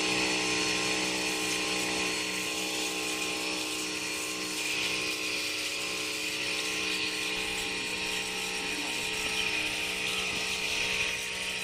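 Pressure washer running steadily: the pump motor hums under the hiss of the water jet.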